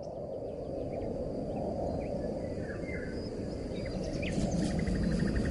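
Rural outdoor ambience: a low rushing noise with a steady high insect whine over it and scattered short bird chirps. A quick rapid trill of chirps comes about four seconds in.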